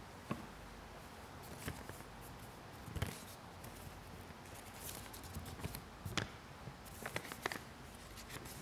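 Paper rustling and crackling as a folded slip of paper is handled and opened close to a lectern microphone, in a few short scattered crackles over quiet room tone.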